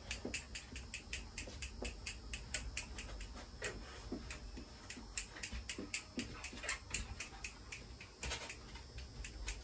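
Rapid, irregular light clicks and taps, several a second, while a cocker spaniel puppy is handled with nail clippers on a grooming table.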